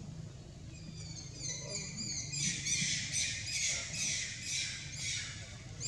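A young monkey screaming over and over during a fight: shrill, high-pitched cries, faint at first, then loud and repeated about twice a second from a little past the middle.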